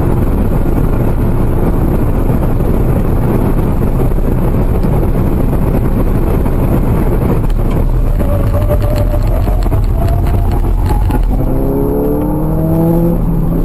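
Loud, steady wind and road noise inside a car travelling at about 235 km/h, with its engine droning underneath. From about eight seconds in, several engine tones rise in pitch.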